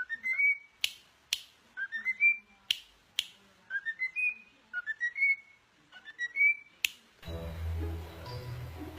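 A bird giving short rising whistled chirps, mostly in pairs, about ten in all, with several sharp clicks between them. Music comes in about seven seconds in.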